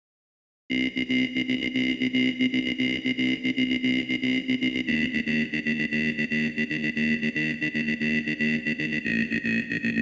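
Software synthesizer playing long held notes with a fast pulsing in its loudness, starting under a second in and moving to a new note about halfway through and again near the end.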